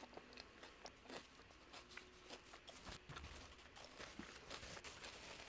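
Faint, scattered crunching and small mouth clicks of someone chewing tortilla nacho chips with toppings, picked up close by the microphone.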